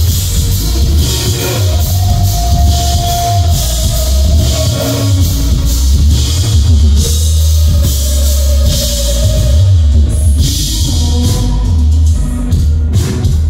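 Live rock band playing loudly, with drum kit, bass and electric guitar, and a man singing long held notes into a microphone over it.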